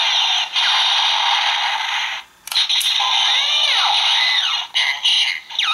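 Drake Zecter toy gun playing electronic blaster sound effects through its small built-in speaker: a harsh charging buzz with sweeping pitch glides, cutting off and restarting a few times, with arching zaps in the middle and a falling zap near the end.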